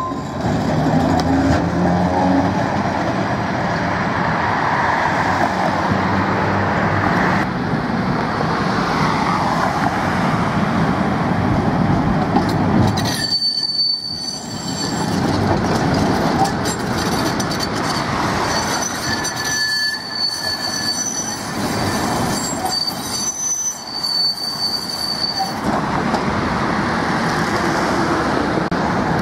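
Budapest trams running past on the rails: first a work car rolls by with a steady rumble, then a yellow articulated tram passes with its wheels squealing in high, steady whistling tones through much of the second half.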